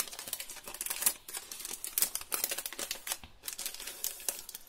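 Small packet of chipboard shapes being handled and opened: rapid, irregular crinkling and clicking.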